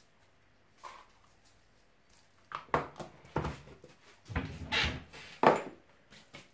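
Knocks and clatter of kitchen containers being handled on a worktop, a single small knock first, then a busier run of sharper knocks over the next few seconds.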